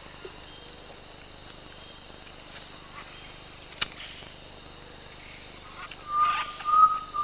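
Rainforest ambience: a steady high insect hiss, a single short click about four seconds in, and from about six seconds a long whistled call that rises slightly in pitch.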